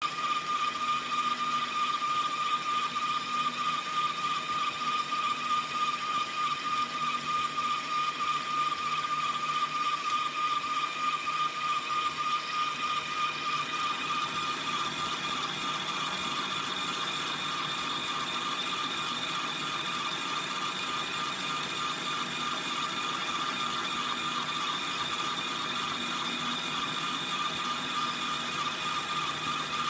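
Small electric gear motor running a model sawmill's belt-driven line shaft and carriage, a steady high whine with a fast ratcheting clatter of small gears and pulleys. The level pulses for roughly the first half, then evens out.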